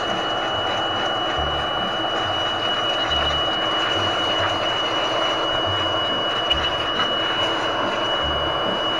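Makita UB182D 18V cordless blower running steadily at full speed while it blows dust out of a toilet exhaust fan: a high, even motor whine over the rush of air.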